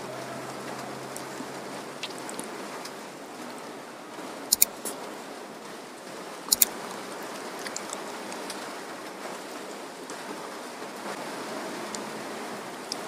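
Quiet eating by hand: fingers picking flesh off a cooked fish and soft chewing, under a steady hiss. Two sharp double clicks stand out, about four and a half and six and a half seconds in.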